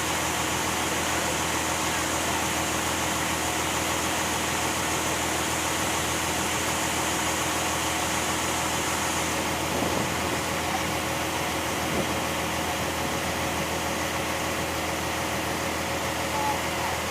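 A boat's engine running steadily, a constant drone with an even rushing noise over it. A high hiss in the mix fades out about nine seconds in.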